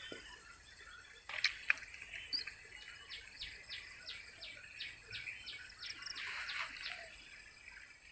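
A bird calling a run of short, evenly spaced high notes, about three a second, over faint outdoor background noise. A couple of sharp clicks come about a second and a half in.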